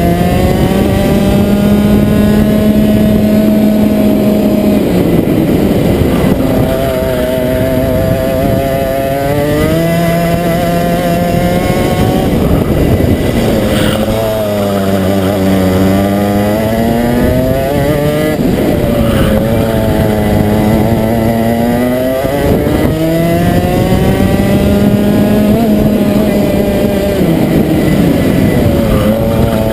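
Rotax 125cc single-cylinder two-stroke kart engine at racing speed, heard from onboard: the revs climb on the straights and fall away under braking into corners several times, dipping lowest about halfway through before pulling back up.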